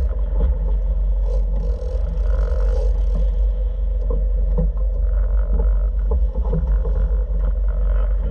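Volvo Penta boat engine running steadily under way, a continuous low rumble mixed with the rush of water along the hull.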